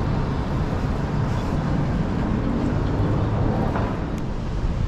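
Street traffic ambience: a steady low rumble of vehicles running on the road.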